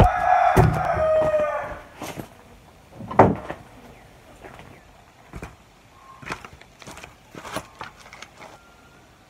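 A rooster crowing, one long call that ends about two seconds in. Then come a sharp knock about three seconds in and scattered clicks and scuffs of sandalled footsteps on loose gravel.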